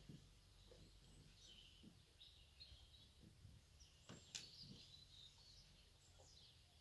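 Near silence: faint birds chirping now and then, with a few soft knocks and one sharp click about four seconds in as a bull feeds from a bathtub trough.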